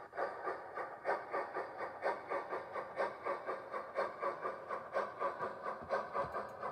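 Sound-fitted model steam locomotive giving an even, hissy chuffing from its onboard speaker, about four chuffs a second, as it runs slowly.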